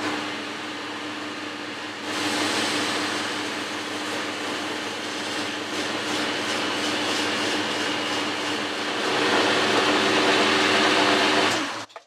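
Boxford metalworking lathe running with a steady hum while emery cloth is held against the spinning metal bar, adding a hiss that starts about two seconds in and gets louder near the end. The sound cuts off suddenly just before the end.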